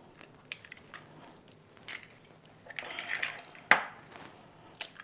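White-shelled eggs being cracked on the rim of a glass bowl and broken open into it: a few light taps of shell on glass, then a sharp crack about three and a half seconds in and another near the end.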